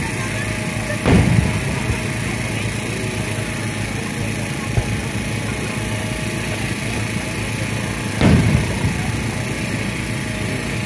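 Two firework shell bursts booming about seven seconds apart, each a sudden bang with a short rumbling tail, over a steady background noise.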